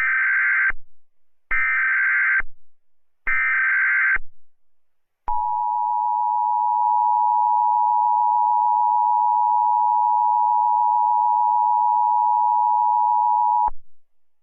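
Emergency Alert System broadcast tones: three short screeching SAME data-header bursts, then the two-tone EAS attention signal held steady for about eight seconds before cutting off. Together they announce an emergency alert message.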